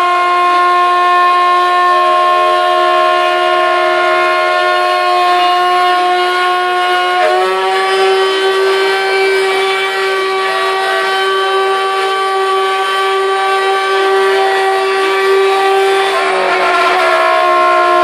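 CNC router spindle whining at a steady high pitch while a 6 mm end mill cuts aluminium plate, with a hissing, chattering cutting noise underneath. The pitch steps up slightly about seven seconds in and wavers briefly near the end.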